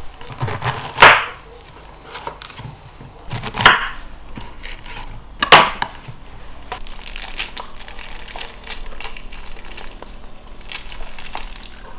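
A chef's knife cutting through whole pomegranates on a wooden cutting board: three loud sharp cuts a couple of seconds apart. After that come softer crackling and wet squishing as the fruit is pulled apart and the seeds are squeezed by hand.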